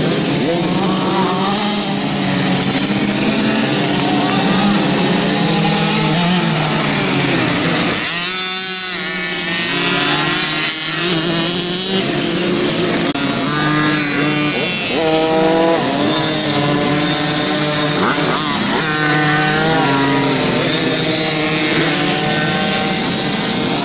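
Small two-stroke youth motocross bike engines revving, several at once, their pitch rising and falling again and again as the riders open and close the throttle and shift.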